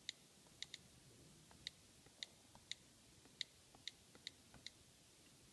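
iPad Air on-screen keyboard key-click sounds, about ten short, crisp ticks at an uneven typing pace as letters are tapped. They stop a little before the end.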